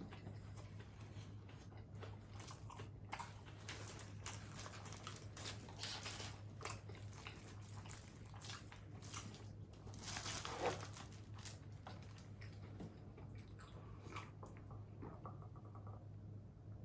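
Close-miked eating of fast food: a person biting and chewing in short, irregular strokes, loudest about ten and a half seconds in.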